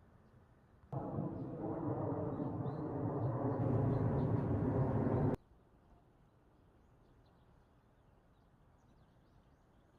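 A steady motor hum with several pitched tones, starting suddenly about a second in, growing a little louder, then cutting off sharply about four seconds later.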